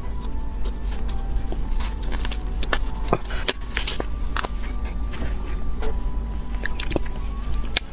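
Irregular sharp clicks and crinkles of hands handling a cake and its wrapping, over a steady low hum.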